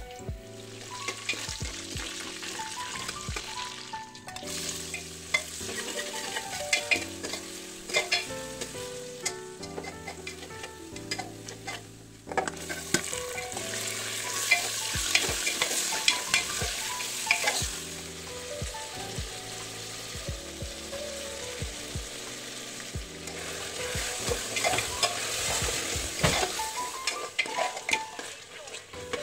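Hot oil sizzling as whole spices and then mutton pieces fry in an aluminium pressure cooker, with a steel ladle scraping and clinking against the pot as the meat is stirred. The sizzle swells at times while the meat is turned, over quiet background music.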